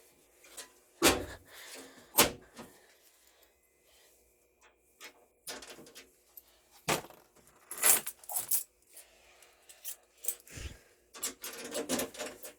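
Irregular handling noise: a dozen or so sharp clicks and knocks with quiet gaps between, and a light metallic jingle. The loudest knocks come about a second and two seconds in, and again about seven and eight seconds in.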